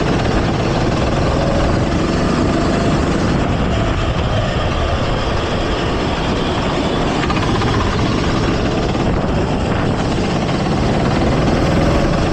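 Go-kart engine running on track, heard from an onboard action camera, its pitch wavering up and down with the throttle over a steady rush of noise.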